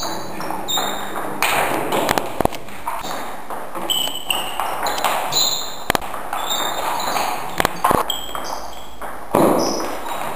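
Table tennis rally: the ball clicking sharply and irregularly off bats and table, several hits a second at times, with short high squeaks between the hits.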